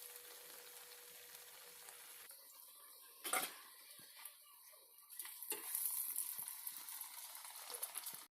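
Hot oil in a pan sizzling, at first faintly; a short knock about three seconds in, then from about five seconds in the sizzling becomes clearly louder as breaded vegetable cutlets fry in the oil.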